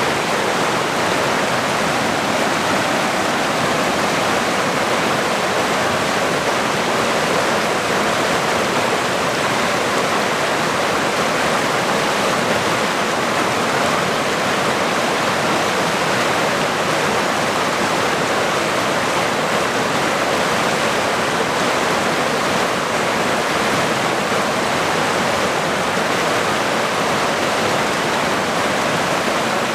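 Rushing water running steadily, an even hiss with no surges or breaks.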